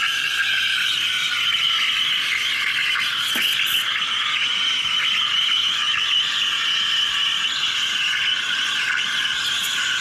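Gaggia Classic Pro's steam wand steaming milk in a stainless steel pitcher, frothing it: a steady hiss with a high whine running through it.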